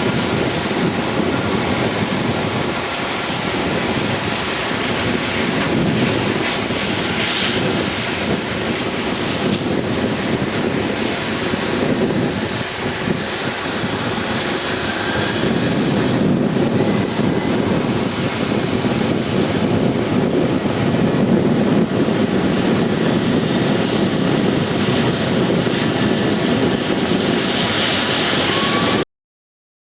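Boeing 747-400's four Rolls-Royce RB211 jet engines running loud and steady, the noise swelling somewhat about halfway through. The sound cuts off suddenly near the end.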